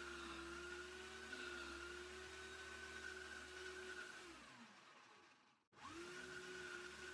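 Small Parkside wood lathe's electric motor running with a steady whine, then switched off about four seconds in and winding down. After a short break it starts up again, the whine rising quickly to speed.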